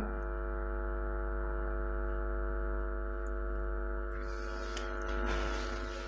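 Steady electrical mains hum with a stack of evenly spaced overtones. A brief rustling, scratchy noise joins it about four seconds in and lasts nearly two seconds.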